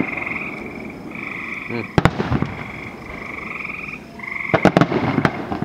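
Frogs calling in repeated short, pulsed trills that overlap one another. Distant firework bursts go off as sharp reports, a pair about two seconds in and a cluster of three near the end; these are the loudest moments.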